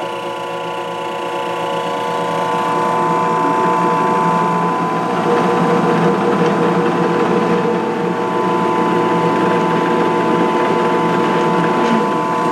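WEN 4214 benchtop drill press, with its 2/3 hp induction motor and mechanical variable-speed drive, switched on and running with no load. It comes in suddenly, builds over the first few seconds, then runs at a steady pitch.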